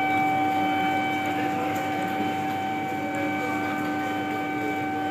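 Horn of an electric local (EMU) train sounding one long steady blast as the train sets off.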